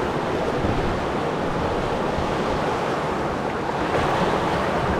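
Steady rush of fast river current around a rowed river boat, with wind rumbling on the microphone.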